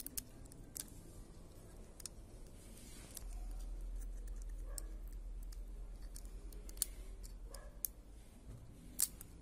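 Sharp, scattered clicks and taps of a metal pry tool against a smartphone's small circuit board and plastic frame as the board is levered loose, the loudest click near the end. A low hum comes in about three seconds in and drops away near the end.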